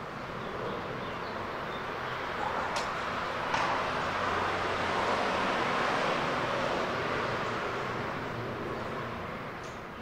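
Train noise at a railway station: a steady rushing sound that swells to a peak and fades away again, with a couple of sharp metallic clicks.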